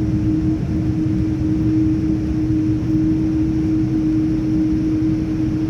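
Cabin noise inside a Boeing 787-9 taxiing on the ground: a steady low rumble with a constant hum that does not change.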